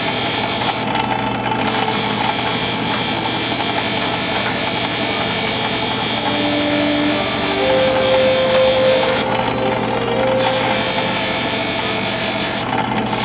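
Drill press spinning an abrasive disc, with a small workpiece held against its edge: a steady motor hum under a rasping sanding hiss. The hiss thins out briefly about a second in, again around ten seconds, and near the end.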